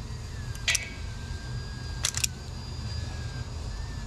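Hand-held wire stripper snapping shut on small wires to strip off the insulation: a sharp click a little under a second in, then a quick double click about two seconds in.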